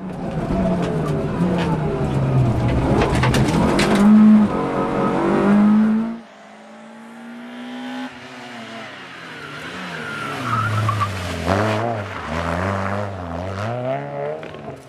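Citroën Saxo VTS rally car's 1.6-litre four-cylinder engine at full throttle, revs climbing and dropping through gear changes, with a few sharp cracks in the first few seconds. About six seconds in it gives way to a quieter engine note heard from the roadside that rises as the car approaches, then revs up and down with the throttle.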